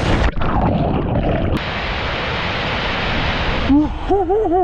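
Steady rush of a waterfall pouring into a plunge pool, dull and muffled for about the first second and a half while the camera is underwater, then full and even. Near the end a person lets out several short whooping calls.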